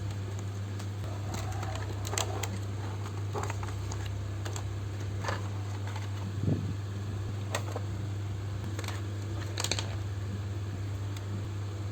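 Scattered light clicks and taps from a laptop's casing, parts and screws being handled while it is taken apart, over a steady low hum.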